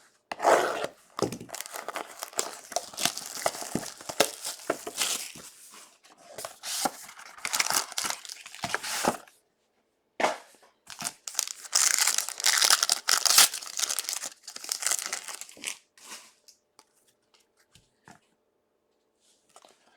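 Plastic trading-card pack wrapping being torn open and crumpled, in two long crinkly stretches with a short pause between them, then a few light handling clicks.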